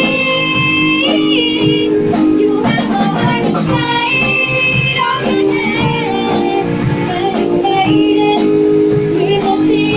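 A live band rehearsing a song: a lead voice sings held notes over a steady chordal backing with drums.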